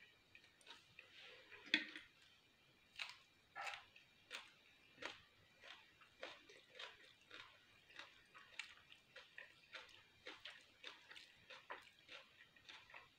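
Close-miked chewing of a mouthful of soft fusilli pasta: wet, squishy chews about two a second, with one sharper, louder sound just under two seconds in.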